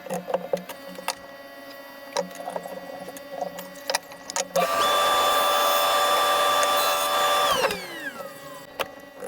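Light knocks and clicks of tools and wood being handled, then an electric power tool motor switches on about halfway through, runs at a steady speed for about three seconds and spins down with a falling whine.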